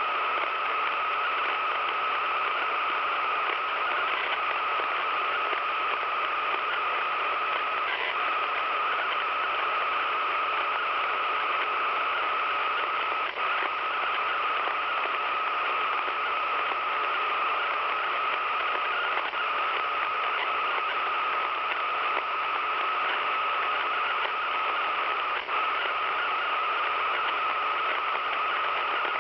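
Radio receiver playing a strange steady noise signal: an unbroken static hiss with a steady high tone running through it and a few faint ticks.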